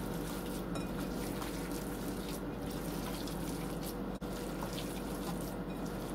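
Bare hands squishing and kneading a wet mixture of raw ground beef, stuffing crumbs, beaten eggs and water in a glass bowl: a steady wet squelching.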